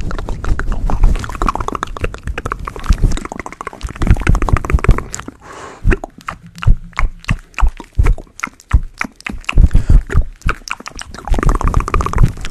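Fingers scratching and rubbing a fluffy microphone windscreen up close, a loud crackling scrape. About halfway through it thins to separate clicks and soft knocks, then grows dense again near the end.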